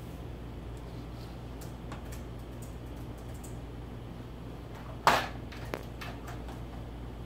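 Small plastic drawer unit clacking sharply once about five seconds in, then clicking lightly, as cats nose and paw at its drawers. Faint small clicks and a steady low hum under it.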